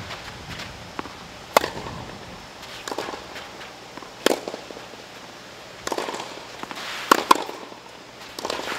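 Tennis rally: the ball is struck by rackets with sharp pops about every two and a half seconds, with softer ball bounces between the strikes.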